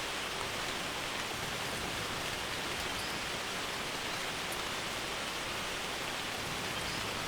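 Steady rain falling on a barn roof, an even, unbroken hiss.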